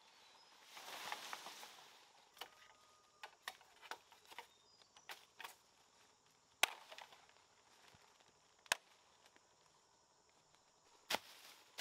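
A machete striking bamboo stems: three sharp, separate cracks spaced about two seconds apart in the second half. Before them come a soft rustle and a run of lighter clicks and snaps among dry leaves.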